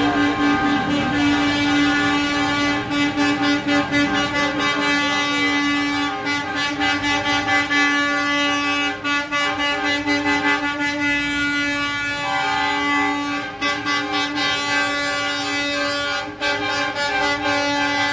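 Truck air horns blaring continuously, several sounding at once as a chord of steady tones, with one note changing about twelve seconds in.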